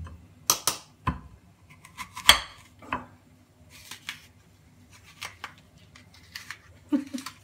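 A metal-shafted apple corer being worked into a Bramley apple: a scattered series of sharp clicks and knocks against the ceramic baking dish and wooden chopping board, the loudest a little over two seconds in.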